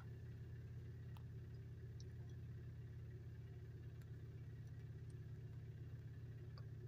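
Faint, steady low hum with a few soft, scattered clicks.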